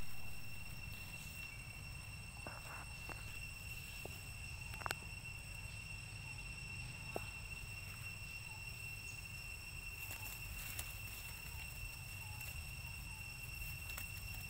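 Steady high-pitched drone of insects, one unbroken tone with fainter higher tones above it, over a low rumble, with a few faint clicks.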